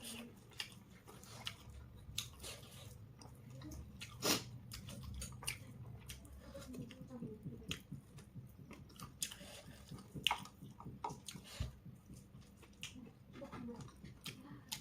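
A person chewing and biting food close to the microphone, with irregular sharp mouth clicks, one of the loudest about four seconds in.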